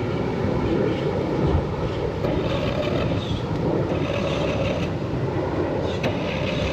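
Engine running steadily with a dense rumble, mixed with wind noise on the microphone.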